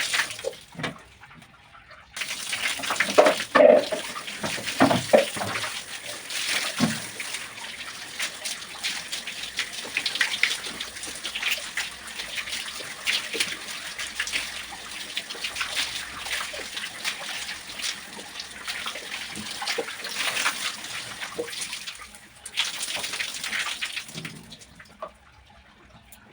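Shower water running and splashing while hair is rinsed, an uneven steady hiss. It stops about 22 seconds in, runs again briefly, then stops.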